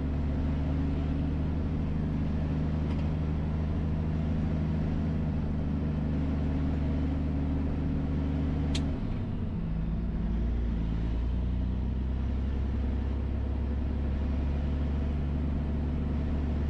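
Triaxle dump truck's diesel engine running steadily as the truck drives, heard from inside the cab. About nine seconds in there is a single sharp click, and the engine note changes and then settles again.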